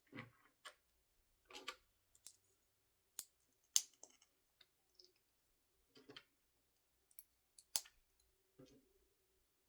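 Small plastic Lego pieces being handled and snapped together: faint scattered clicks and rustling, with sharper clicks about three, four and eight seconds in.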